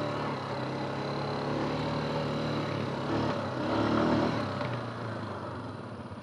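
Yamaha Grizzly 350 quad's single-cylinder four-stroke engine pulling up a slope. It runs steadily, swells briefly about three to four seconds in, then drops away and is quieter near the end as the quad loses speed on the climb.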